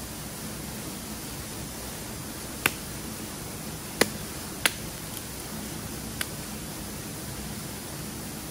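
Small wood fire of shavings and twigs crackling: four sharp single pops spread over the stretch, above a steady hiss.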